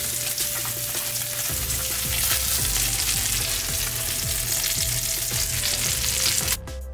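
Salmon cakes frying in hot canola oil in a cast iron skillet: a steady crackling sizzle. It cuts off abruptly near the end, leaving music.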